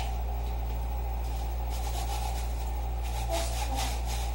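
Sponge scrubbing a drinking glass at the sink, faint strokes that come in about halfway through, over a steady low hum.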